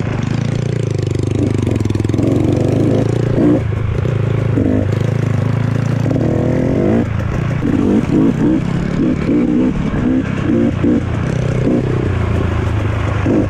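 Off-road dirt bike engine running as it is ridden along a dirt trail, with a steady drone and, from about halfway through, a series of short, choppy throttle blips.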